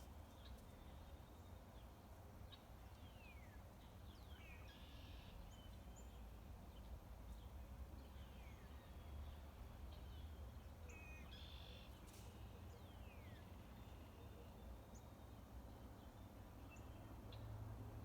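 Faint ambience of small birds chirping, many short falling calls scattered throughout, over a low steady rumble.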